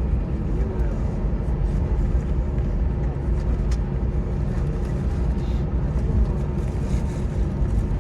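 Steady low rumble inside the cabin of an Airbus A321 taxiing slowly on the ground, with a faint steady hum running through it.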